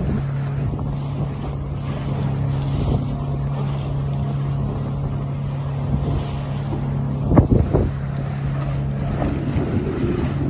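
Steady low drone of the engine of the boat pushing the barge, over wind noise on the microphone and water washing past the hull. A brief louder rush of noise comes about seven seconds in.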